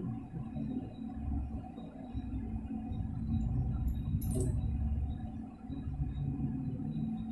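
Low, steady rumble with metal tool handling as a flywheel puller is worked on a motorcycle's magneto flywheel; one sharp metallic clink about four seconds in.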